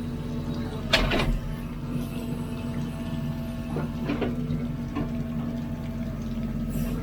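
Hidromek 102B backhoe loader's diesel engine running steadily as it digs, with short clanks and scrapes of the digging work about a second in and again around four and five seconds.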